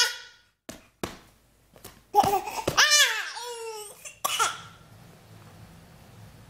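A baby vocalizing: a short laughing squeal at the start, a few small mouth sounds, then about two seconds in a long high-pitched squeal that rises and falls in pitch, followed by a brief shorter cry.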